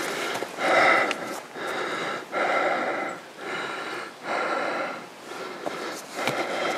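A person breathing close to the microphone while walking: a steady rhythm of long breaths in and out, stronger and weaker in turn.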